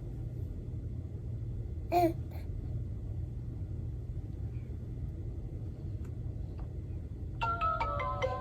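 A baby's short babbling vocal sound about two seconds in, over a steady low rumble. Near the end, the toy walker's electronic chime tones start up.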